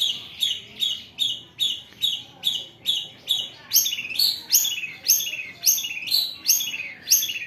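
Long-tailed shrike (cendet) giving a fast run of harsh, rasping calls, about two and a half a second, each note sweeping down in pitch. The notes get louder about halfway through.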